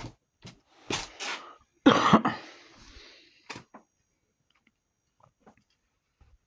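A shirt's fabric being torn apart by hand: two short rips about a second in, then a louder, longer tear about two seconds in that trails off.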